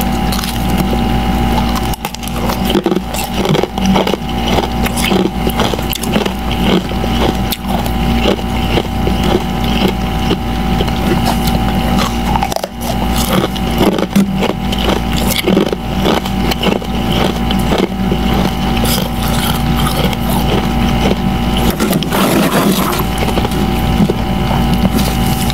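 Powdery freezer frost crunching as it is bitten and chewed, many crisp irregular crunches, with a gloved hand scooping and scraping frost near the end. A steady mechanical hum runs underneath.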